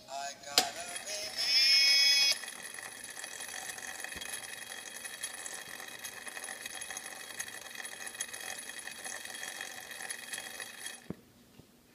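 A click, then a brief loud whine, then the small electric motor that spins the brass propeller under the lamp's glass dome whirs steadily in a high, even whine. It cuts off with a click about eleven seconds in.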